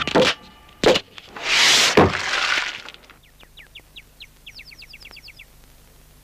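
Sound effects of a knock, a sharp crack and a rushing crash that ends in a thud, in the first two seconds. From about three seconds in come quick runs of short, high, falling bird chirps.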